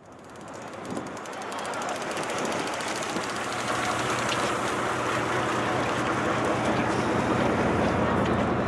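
Steady wind and sea noise on a boat's open deck, with the low steady hum of the boat's engine beneath; it rises over the first couple of seconds, then holds level.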